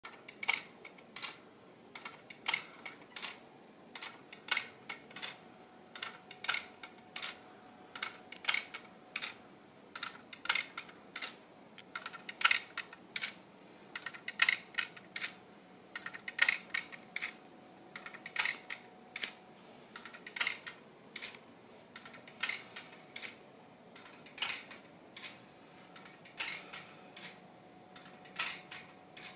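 Wooden-gear pendulum clock ticking: the escapement clicks about once a second in an uneven tick-tock, the gaps alternating short and long, each tick a quick cluster of wooden clicks.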